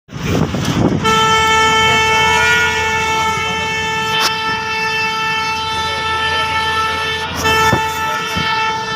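A bus horn sounding one long, steady blast from about a second in, cut briefly about seven seconds in and then sounding again, over the low rumble of traffic.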